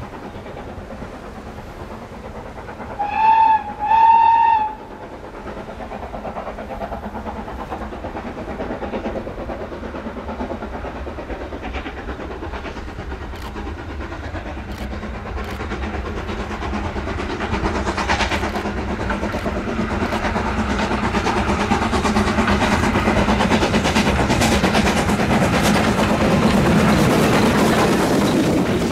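Steam locomotive whistle sounds two blasts, a short one then a longer one, about three seconds in. The steam train then grows steadily louder as it approaches, ending with the locomotive and coaches running past close by on the rails.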